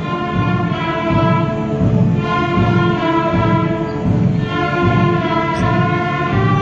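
Bowed strings of an orchestra playing long held notes, the harmony changing about every two seconds, over a low pulsing bass.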